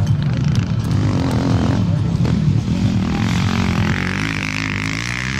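Engines of racing vehicles running loud, their pitch shifting up and down, with the engine note rising near the end.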